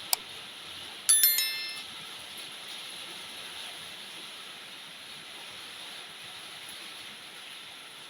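Heavy rain falling with a steady hiss. A sharp click comes just after the start, and about a second in a loud metallic clang rings briefly with several tones before dying away.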